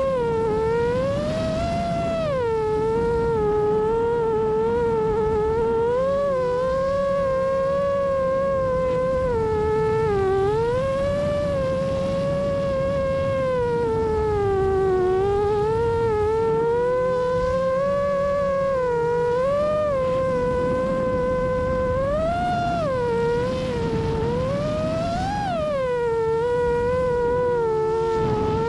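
Whine of an FPV drone's motors, its pitch rising and falling continually as the throttle is worked through the turns, over a low rumble.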